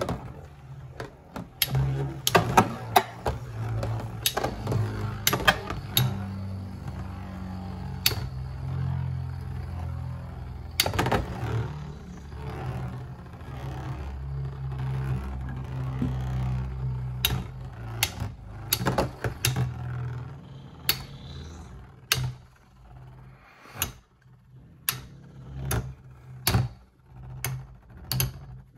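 L-Drago Destructor F:S and another Beyblade spinning in a plastic Beyblade stadium: a steady low whirr of the tops on the stadium floor, broken by repeated sharp clicks and clacks as they knock together. The whirr drops away about twenty seconds in, leaving sparser clacks.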